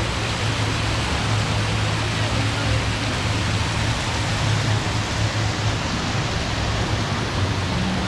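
Small waterfall spilling down a rock face, a steady splashing rush of water, with a steady low hum beneath it.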